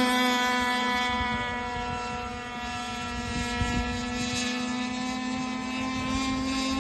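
Radio-controlled racing boat's motor running at a steady high pitch out on the water. It fades a little near the middle and grows louder again toward the end.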